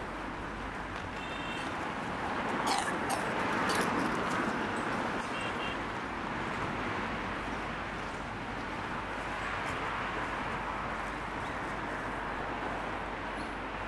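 Street traffic noise: a steady hiss of cars and scooters on the road alongside, swelling as vehicles pass about three to four seconds in and again around ten seconds. A few sharp clicks come near three seconds, and there are two brief high tones.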